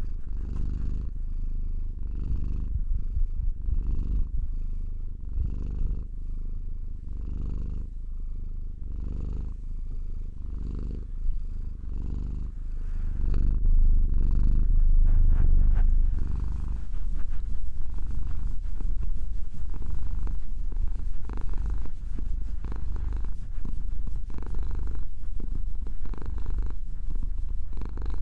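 Domestic cat purring close to the microphone. It is low and continuous, growing louder about halfway through.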